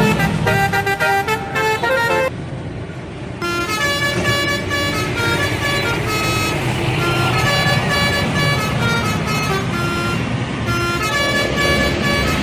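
Bus telolet horn playing a quick tune of stepping notes. It breaks off for about a second a couple of seconds in, then plays on, over the low noise of the engine and road.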